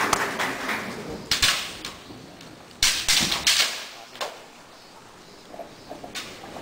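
Kendo fighters' sharp kiai shouts and clacks of bamboo shinai striking, in bursts near the start, about a second in and about three seconds in, then quieter hall sound as they close in to body contact.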